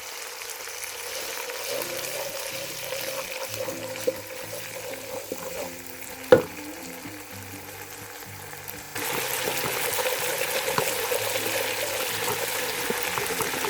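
Masala of onion, tomato and garam masala sizzling in oil in a kadai as it is fried and stirred. There is one sharp knock a little after six seconds in, and the sizzling gets louder about nine seconds in.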